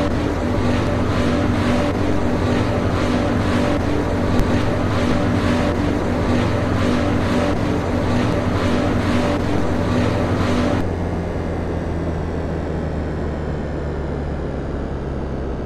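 York split air conditioner running: a steady mechanical hum with a regular pulsing whoosh and a steady tone over it. About eleven seconds in, the tone and the pulsing cut off suddenly, leaving a lower steady hum.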